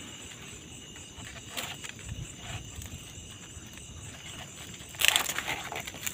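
Steady high-pitched chirring of night insects such as crickets. About five seconds in, a sudden louder burst of noise with sharp clicks cuts in over it.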